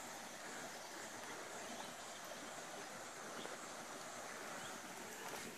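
Faint, steady tropical jungle ambience: an even hiss with a high insect drone.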